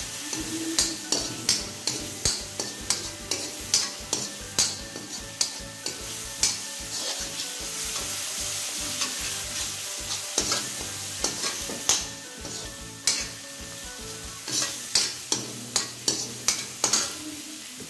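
Spice masala sizzling in oil in a kadhai while a perforated steel ladle stirs it, scraping and clinking against the pan about once or twice a second, with a stretch of steadier sizzling midway. The masala has been fried until the oil separates.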